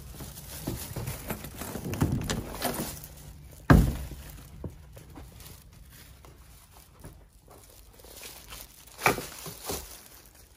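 Footsteps and handling noise as someone walks in carrying plastic grocery bags, with a single heavy thump about four seconds in and plastic bag rustling near the end.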